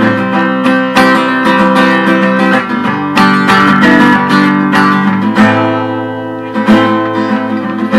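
Acoustic guitar strummed in chords as an instrumental passage between sung lines, easing off in the last couple of seconds.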